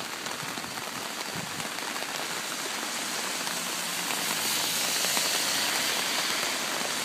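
Steady rain falling, with scattered drops pattering close by; it grows gradually louder through the second half.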